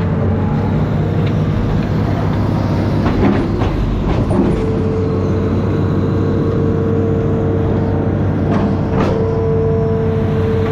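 Amphibious excavator's diesel engine running steadily, with a steady higher tone that grows stronger about halfway through and a few short knocks about three to four seconds in and again near nine seconds.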